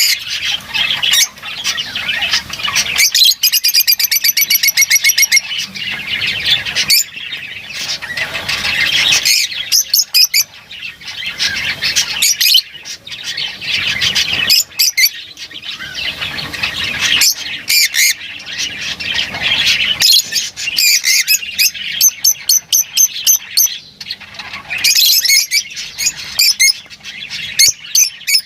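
Lovebirds chattering and squawking in shrill, choppy, overlapping calls, with a fast rattling trill a few seconds in.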